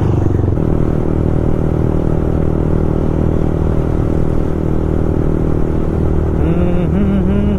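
Yamaha MT-15's single-cylinder engine running through an Akrapovic full-system exhaust at a steady cruising speed while riding.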